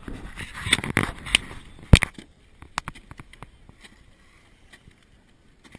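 Rustling and knocking right at the microphone of a wearable action camera, with one sharp knock about two seconds in, then fainter scattered clicks.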